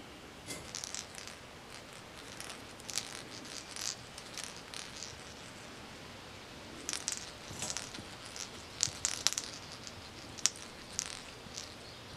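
Kittens scuffling and wrestling on shag carpet: scattered light rustles and clicks in short clusters with pauses between them, and no meowing.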